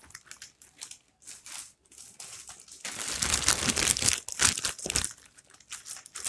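Packing tape being torn open along the seam of a cardboard shipping box, in short irregular rips and rustles. They are busiest and loudest from about three to five seconds in.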